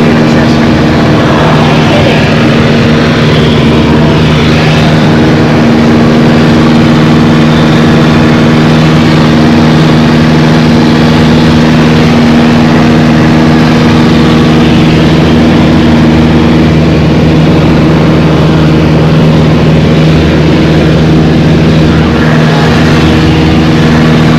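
Single-engine light aircraft's piston engine and propeller running steadily in flight, heard from inside the cabin as an even, unchanging drone.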